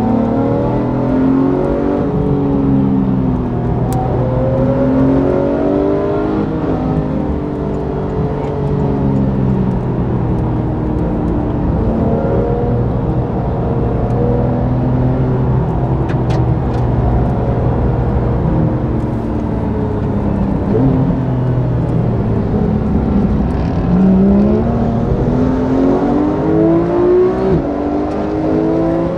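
Porsche 991 GT3's naturally aspirated flat-six engine heard from inside the cabin on track, its pitch rising and falling with throttle and gear changes. It is steadier through the middle, then pulls hard in several rising sweeps near the end.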